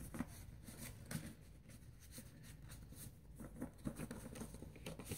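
Faint rustling and light clicks of a paper greeting card and its envelope being handled.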